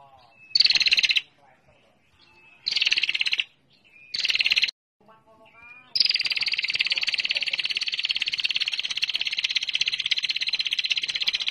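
Female prinia (prenjak) giving its rapid, buzzy 'ngetir' trill: three short bursts of under a second each, then one long unbroken trill from about six seconds in. Faint short chirps fall between the bursts.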